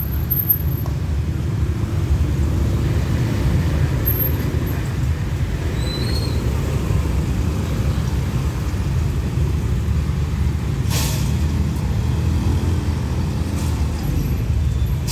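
Busy road traffic of motorcycles and cars passing over a level crossing, a steady low engine rumble, with a brief hiss about eleven seconds in.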